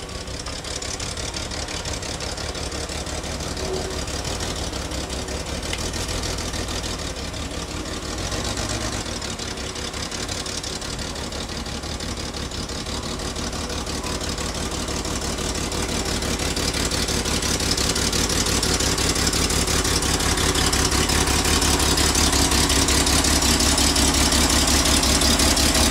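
1967 Corvair's rebuilt 140 hp air-cooled flat-six running as the car drives up and pulls in close. It grows steadily louder, loudest near the end.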